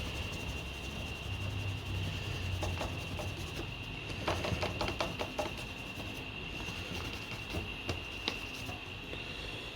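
Pencil rubbing and scratching over brown paper laid on a car's steel parcel shelf, in a run of short strokes about a third of the way in and a few more near the end, with paper rustling. A steady high-pitched whine sounds throughout.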